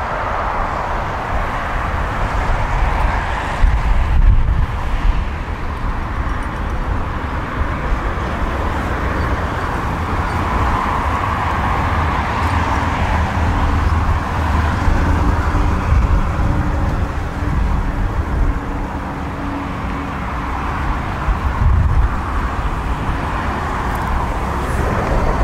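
Steady outdoor road-traffic noise, with uneven low rumbles of wind on the microphone that swell twice.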